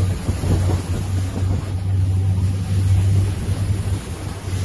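Motorboat under way, its engine a steady low drone, with wind buffeting the microphone.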